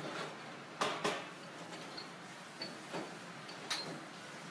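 A few light clicks and clinks of a serving utensil against a ceramic plate as food is put onto it, two close together about a second in, over a steady background hiss.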